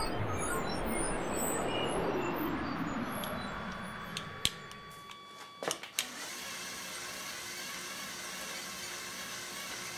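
A falling whooshing sweep fades out over the first five seconds, with a few sharp clicks about four to six seconds in. A steady whirr then sets in from the model locomotive's Lego electric motor and gear train, turning its wheels on a roller test bench.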